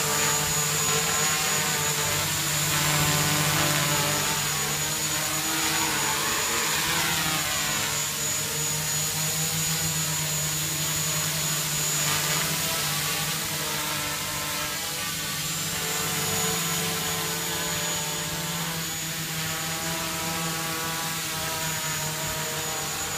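A 3D-printed quadcopter's four electric motors and propellers buzzing steadily as it hovers, a hum of several tones that shifts a little in pitch as it holds position.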